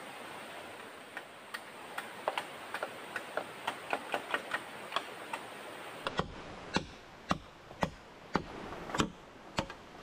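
Machete chopping a bamboo pole: sharp strikes about two a second in the second half. Before them, a quicker run of lighter ticking taps.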